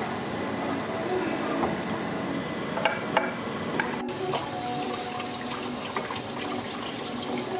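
Food sizzling in a frying pan, with a few sharp clicks of a utensil against the pan, then after a cut about four seconds in, a kitchen tap running water over tomatoes being rinsed by hand.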